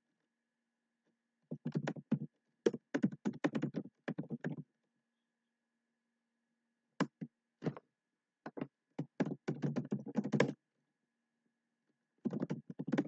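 Typing on a computer keyboard: rapid keystrokes in three bursts, one about a second and a half in, one about seven seconds in and one near the end, with pauses between. A faint steady hum runs underneath.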